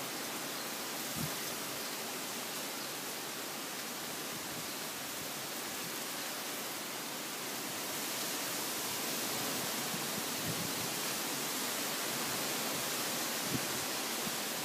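Steady rushing noise of a typhoon storm, growing a little louder about halfway through.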